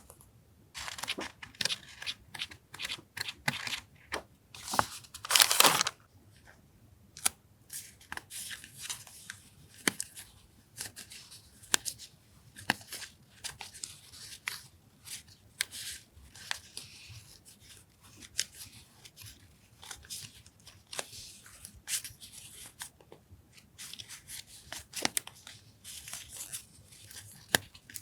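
Paper and plastic packaging of stationery being handled and unwrapped: irregular crinkling, rustling and small clicks, with one louder tearing sound about five seconds in.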